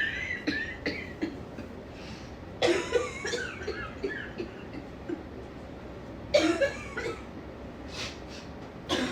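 A woman with a cold coughing in fits: a short one at the start, a longer bout about two and a half seconds in, the loudest about six and a half seconds in, and another starting near the end.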